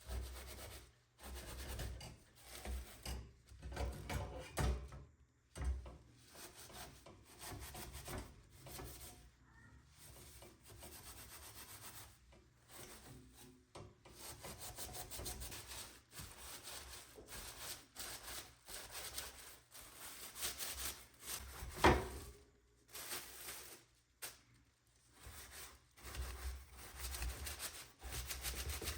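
Hand scrubbing of a surface during cleaning: irregular rubbing strokes that stop and start, with one sharp knock late on.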